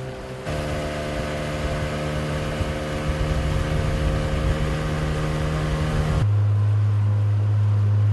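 An engine running steadily with a low hum. Its tone and pitch change abruptly about half a second in and again about six seconds in.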